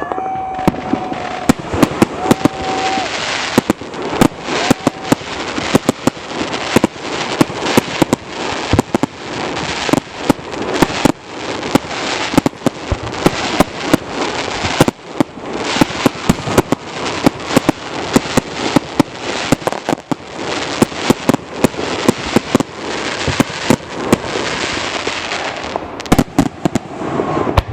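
Aerial fireworks going off in a dense, continuous barrage: sharp booms several times a second over steady crackling, without a break.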